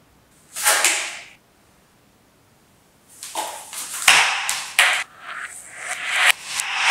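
A short swish about half a second in, then a run of rustling and crinkling with a couple of sharp snaps as a white piece of material is shaken and handled and a protective coverall is tugged.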